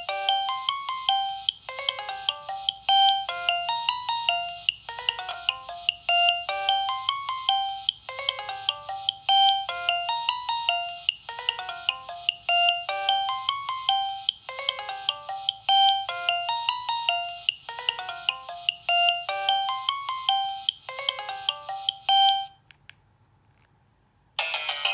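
Nokia 2115i mobile phone playing one of its preloaded ringtones through its speaker: a melody of short notes in a phrase repeated over and over. It cuts off about 22 seconds in, and after a pause of about two seconds the next ringtone starts just before the end.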